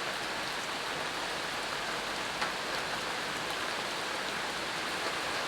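Steady rainfall with scattered drops, an even hiss throughout.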